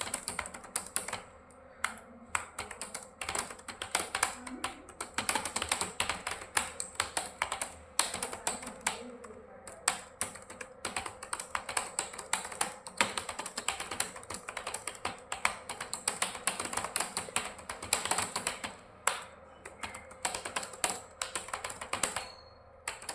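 Rapid, continuous typing on a computer keyboard, many keystrokes a second with a few short pauses: a timed typing test typed at about 60 words a minute.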